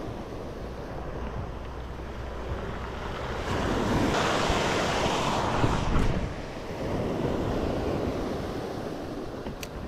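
Ocean surf breaking and washing over a shingle beach, with wind on the microphone. A louder wash of surf comes about four seconds in and lasts a couple of seconds.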